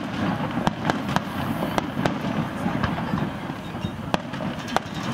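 Aerial firework shells bursting: about ten sharp bangs at uneven intervals over a steady low background noise.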